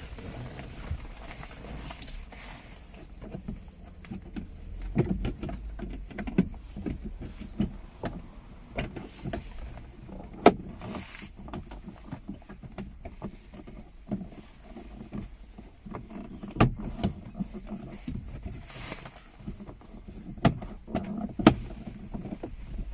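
Plastic car interior trim panel (the pillar panel) being handled and pressed back into place: irregular clicks, knocks and rustles, with a sharp click about ten seconds in.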